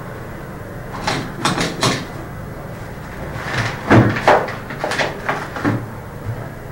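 Hard objects clattering and knocking on a countertop as someone rummages through them: a run of short knocks in two clusters, one about a second in and another from about three and a half seconds on.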